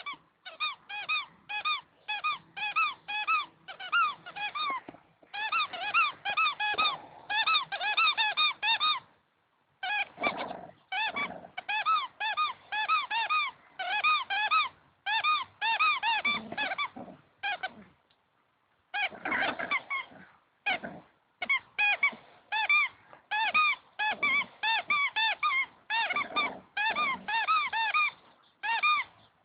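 Spiky rubber squeaky ball squeaking over and over as a puppy bites and chews it: short arched squeaks at about two a second, in runs broken by two brief pauses.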